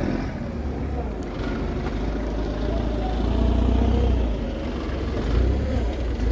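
Engine of a piece of heavy equipment running steadily with a deep rumble, swelling a little in the middle and again near the end.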